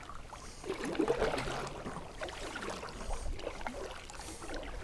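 Water lapping and trickling around a kayak, with small irregular knocks and clicks from the boat and gear.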